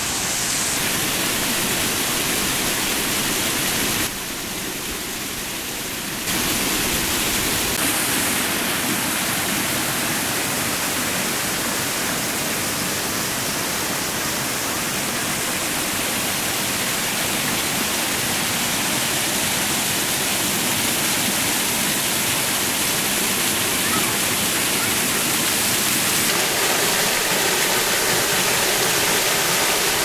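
Water from a small waterfall and stream, splashing and rushing steadily over rocks into a pool. The sound drops quieter for about two seconds around four seconds in, then returns.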